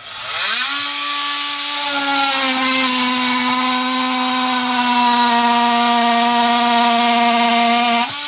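Makita DTM50 cordless oscillating multi-tool running on speed setting 6: it spins up within the first second into a steady, very noisy buzzing drone, dips slightly in pitch after a couple of seconds, and shuts off near the end.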